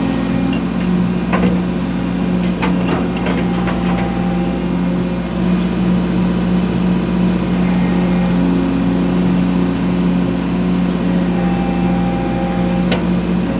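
Excavator's diesel engine running steadily under hydraulic work, with a few sharp clanks about one to four seconds in and again near the end.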